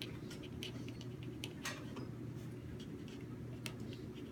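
Pen writing on paper: faint, irregular scratches and small taps of the strokes over a steady low hum.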